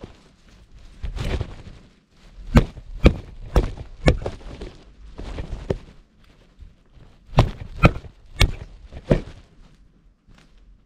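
Irregular sharp knocks and thuds, some in quick twos and threes, from a carrion crow pecking and moving about inside a tent. It falls quiet near the end.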